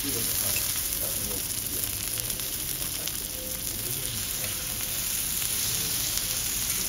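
A5 Kobe beef steak sizzling steadily on a hot teppanyaki griddle as it is sliced, fat spitting on the steel plate.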